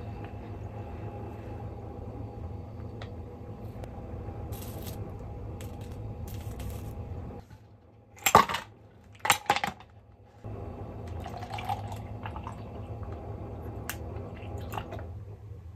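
Large ice cubes tipped from a metal scoop into a clear plastic cup, clattering in two quick bursts about halfway through. Milk is then poured from a carton over the ice, under a steady low hum.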